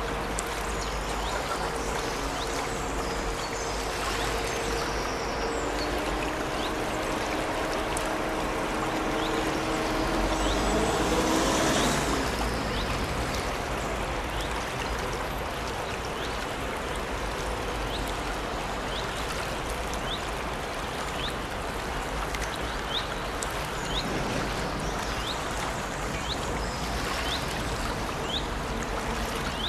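Small brook babbling, with small birds chirping now and then. A steady engine hum runs under it at first, swells, and stops about twelve seconds in.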